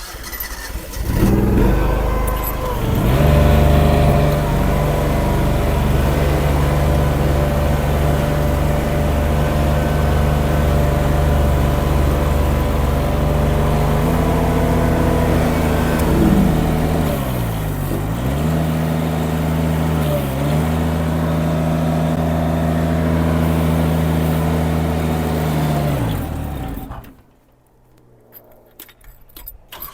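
Mini skid steer engine running steadily at high speed. Its pitch sags and recovers twice in the second half, and the sound then cuts off abruptly near the end.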